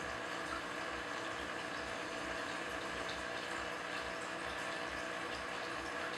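Aquarium water circulating with a steady, unbroken running-water noise, sprinkled with faint small ticks.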